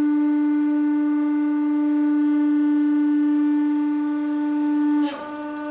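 A loud, steady pitched drone with overtones, held on one note. About five seconds in a sharp click cuts in, and the drone carries on noticeably quieter.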